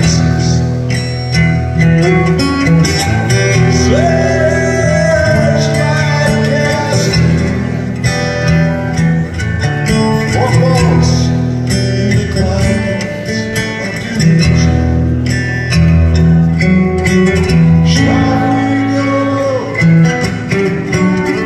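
Solo acoustic guitar played live through a theatre PA, chords ringing on and changing every second or two.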